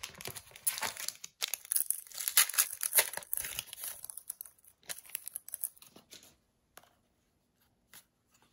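A foil booster pack of Sorcery: Contested Realm Beta cards being torn open and crinkled by hand for about four seconds, followed by softer rustles and clicks as the cards are taken out and handled.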